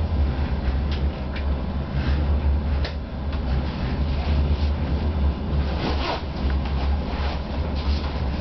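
Inside the driver's cab of a DR1A diesel multiple unit under way: a steady low drone from the diesel engine and running gear with wheel-on-rail rumble. Short knocks and rattles come and go, with a louder clattering stretch about six seconds in.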